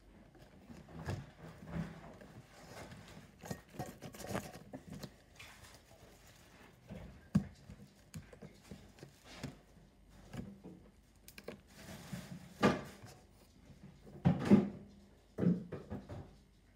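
Hands kneading, stretching and pressing translucent glitter slime on a tabletop: irregular soft squishing and sticky handling noises, with a few louder thumps in the second half.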